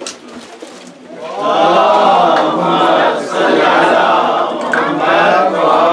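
A group of voices chanting together in unison, starting about a second in and carrying on with only brief dips.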